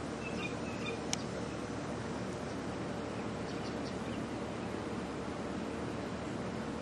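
Steady outdoor background hiss with a few faint, high bird chirps near the start and again midway, and a single sharp click about a second in.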